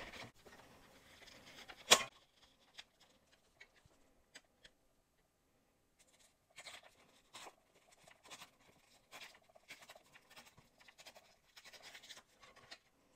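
White paper being torn along the wavy edge of a plastic tearing ruler to give a rough, deckled edge: faint, broken crackling rustles in short pulls over the last half. A single sharp knock about two seconds in.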